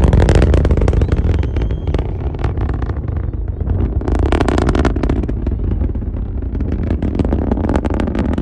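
SpaceX Falcon 9 rocket's first-stage engines, nine Merlins, heard from the ground during ascent: a loud, continuous deep rumble with rapid crackling and popping running through it.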